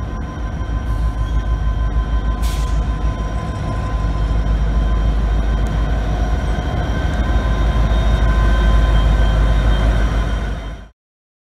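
Norfolk Southern train rolling past: a heavy low rumble growing louder, with faint steady high tones over it, cut off abruptly near the end.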